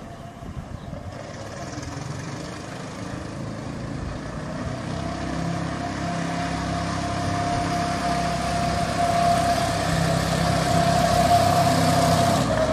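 Small engine of a miniature ride-on monster truck running as it drives closer, growing steadily louder, with a steady high whine joining in about halfway through.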